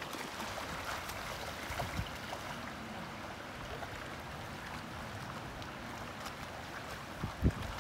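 River water running steadily over a shallow, rocky riffle. A couple of short, low thumps come near the end.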